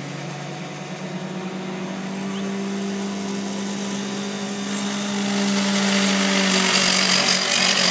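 Drag-racing car engine running at the starting line of a drag strip during a burnout, holding steady revs. About five seconds in it gets louder, with a rushing hiss building over it.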